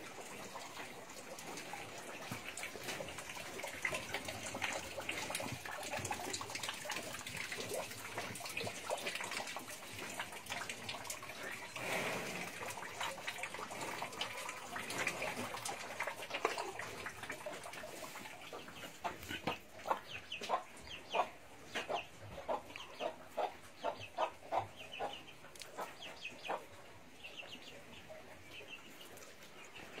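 Farmyard background of short animal calls, with a quick, evenly spaced run of them, about two a second, in the second half.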